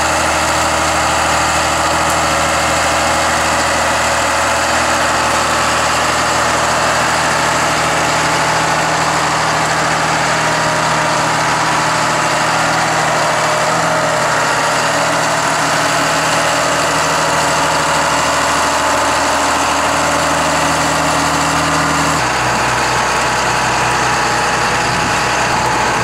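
John Deere tractor's diesel engine running steadily while it pushes a front-mounted tire weed puller through the crop. The engine tone shifts abruptly near the end.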